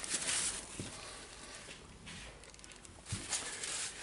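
Paper towel rustling as greasy rubber gloves are wiped, in two short spells, at the start and near the end, with a light knock just before the second.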